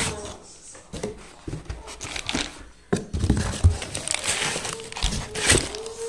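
Plastic wrapping crinkling and a cardboard box rustling and knocking as wrapped ceiling fan parts are handled and lifted out, in uneven spells that are densest in the second half.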